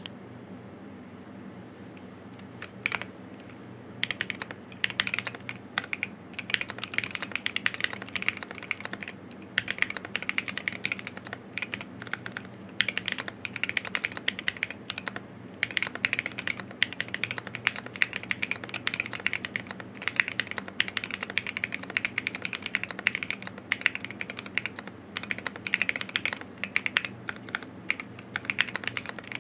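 Typing on a custom Mon1 Alice mechanical keyboard with Tecsee Carrot switches, a carbon-fibre plate and XDA keycaps. There are a few separate keystrokes at first, then fast, continuous typing with a couple of brief pauses.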